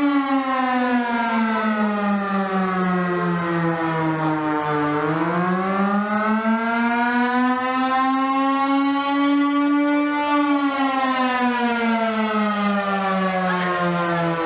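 Air raid siren wailing: one long tone that slides slowly down in pitch, climbs back up over about five seconds, then slides down again. It is sounding the air raid alert.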